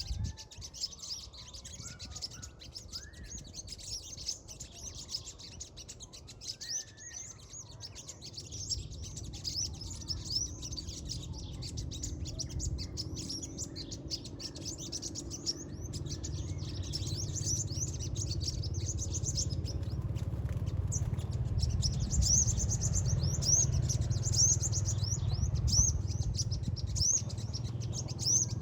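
Small birds chirping: many short, high chirps repeated quickly, coming thicker in the second half. A low rumble builds underneath from about a third of the way in.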